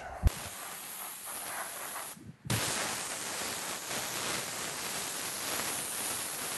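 Gravity-feed compressed-air paint spray gun hissing as it sprays a second coat of primer onto a plastic car bumper. A short click just after the start, a fainter hiss, a brief break about two seconds in, then a steady, louder hiss.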